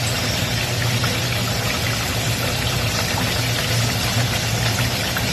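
Potato pieces deep-frying in hot oil in a steel pan, a steady, even sizzle, with a constant low hum underneath.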